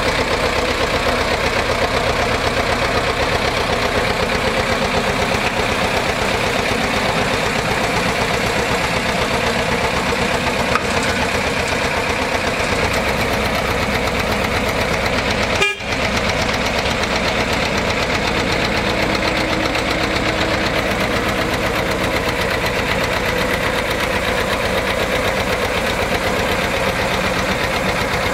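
Small narrow-gauge diesel locomotive running steadily at low speed, its engine giving an even, fast firing beat, with a brief break about halfway through.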